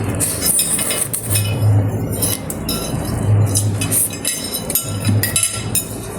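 Spoon and fork clinking and scraping against a bowl while noodles are eaten, with many short clicks. Background music sits underneath, its low bass note returning about every two seconds.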